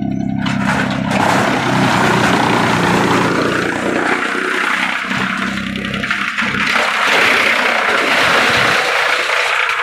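Heavy-duty wood chipper running: a steady low machine hum for the first few seconds, under a loud rough noise that swells and fades.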